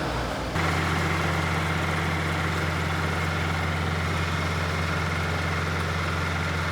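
Excavator's engine idling steadily: a low, even hum with a faint high whine above it. The sound changes abruptly about half a second in, then holds steady.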